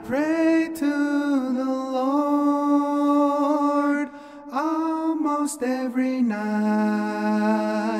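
Song with a voice holding long wordless notes over a steady drone. There is a short break about four seconds in, and a lower held note near the end.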